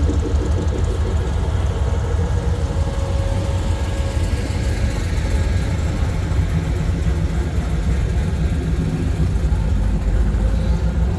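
Classic cars' engines idling as they roll slowly past at walking pace, a deep, steady exhaust rumble. A Pontiac Firebird passes close at the start and a Chevrolet Impala draws nearer behind it.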